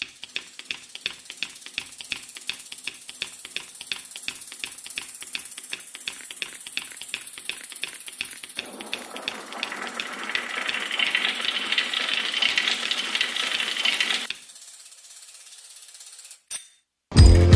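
Bicycle freewheel ticking rapidly and evenly while the bike coasts, its pawls clicking in a steady train. About halfway through a rushing noise joins in and grows louder, then both stop suddenly; music starts right at the end.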